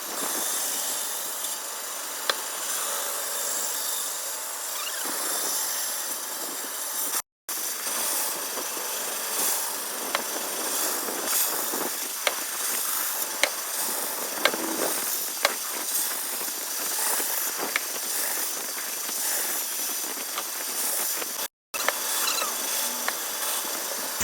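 Power saw cutting through wood: a steady hissing rasp with scattered sharp ticks, broken twice by a momentary drop to silence.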